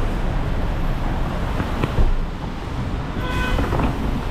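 Steady road traffic rumble, with a single sharp thump about two seconds in and a short beep, like a vehicle horn, shortly before the end.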